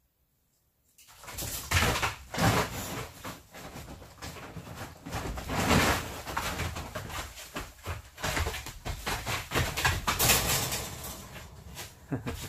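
Jindo puppy and larger dog moving and scuffling on a plastic tarp floor: an uneven run of crinkling, scraping and thumps that starts about a second in.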